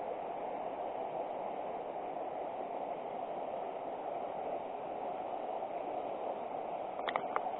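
River water rushing steadily over the riverbed, an even hiss with no letup. About seven seconds in, a brief cluster of short, sharp high sounds.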